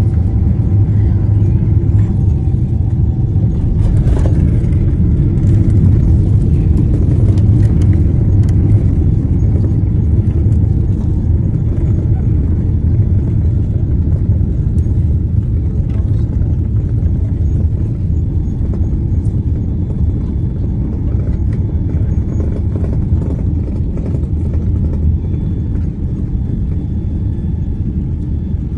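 Loud, steady low rumble inside a jet airliner's cabin during landing, with a brief sharp noise about four seconds in. The rumble eases slowly over the second half.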